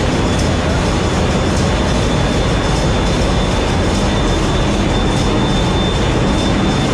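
Loud, steady machinery noise inside a container ship's engine room, with a faint high whine running through it.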